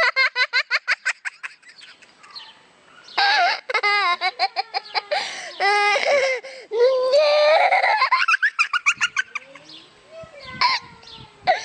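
High-pitched cackling: rapid runs of short laughing notes, with longer squealing calls that slide up and down in between.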